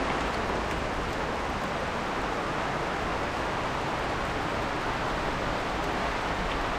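Steady, even rush of water from a waterfall running full after rain.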